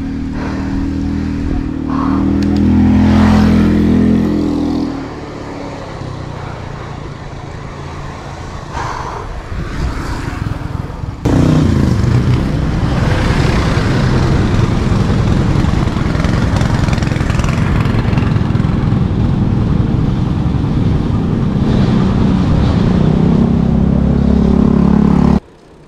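A motor vehicle engine running, its pitch rising then falling over the first few seconds. After a sudden jump in level it becomes a steady loud engine rumble with rushing noise, which cuts off abruptly near the end.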